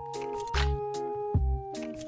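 Background music with a steady beat: an instrumental track of sustained chords and regular drum hits.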